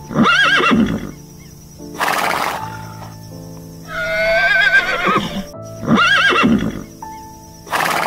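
A horse neighing over background music: two short arched neighs near the start and later, and a longer wavering whinny in the middle, with two short noisy bursts between them.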